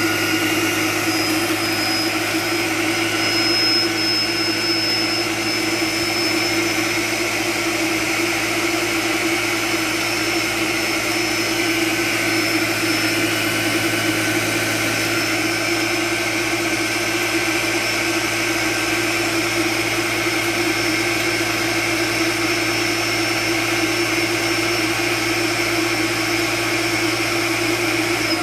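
Ninja Professional Plus Kitchen System blender running loud and steady on its AutoiQ Dough program, its blade working butter, sugar and egg into cookie dough.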